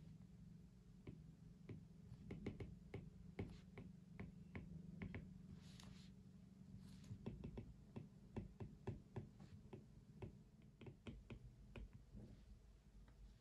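Faint, irregular light taps and clicks at a desk, coming in quick clusters at times, over a steady low hum.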